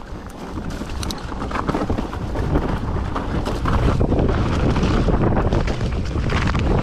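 Hardtail mountain bike ridden fast down a rocky dirt trail. Wind buffets the microphone over the rumble and clatter of the tyres and bike on rock and roots, growing louder as speed builds over the first few seconds.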